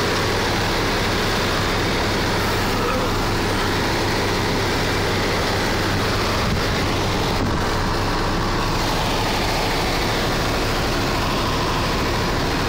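Heavy diesel vehicle engines running steadily at close range, with a low hum under a constant rushing noise that does not change.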